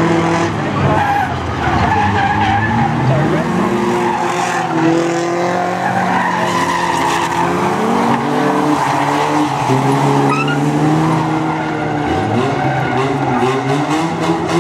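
Several banger racing cars' engines running and revving, their pitch rising and falling as they accelerate and back off, with tyres skidding on the loose track surface.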